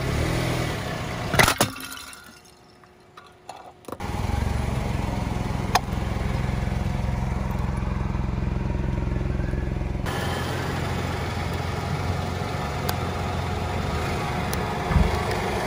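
Car engine running at low speed close to the ground as the tyre rolls over objects, with a loud sharp crack about a second and a half in. A few short clicks and a low thump near the end sit over the steady engine rumble.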